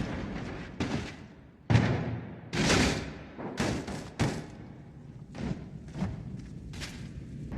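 A series of about eight thuds and knocks at irregular intervals, each sudden with a short ringing tail; the loudest come at about one and three-quarter seconds and two and a half seconds in.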